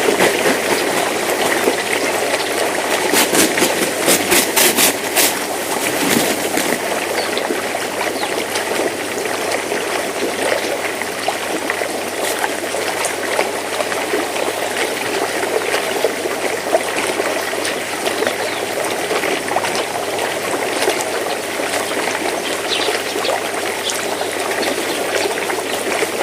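Steady trickle of running water, with a quick run of sharp clicks about three to five seconds in.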